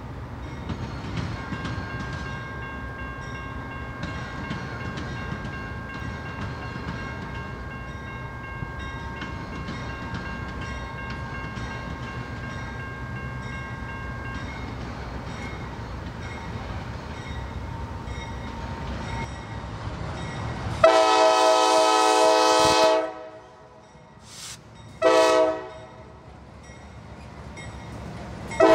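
Norfolk Southern diesel freight locomotives and cars rumbling steadily past over a railroad diamond. Then a locomotive air horn sounds, far louder than the rumble: a long blast of about two seconds, a short blast a few seconds later, and another blast starting at the very end.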